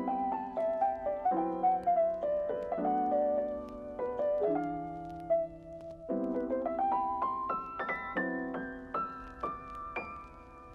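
Background piano music: a melody of single notes moving over held chords.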